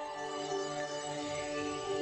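Background music: soft electronic, new-age style, with held synth notes and a low bass note coming in just after the start.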